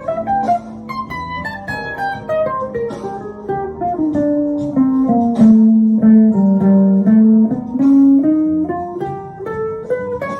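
Electric guitar, a Les Paul, improvising single-note lead lines over a backing track of held chords. Quick runs of notes settle into a slower line that falls and then climbs back up around the middle.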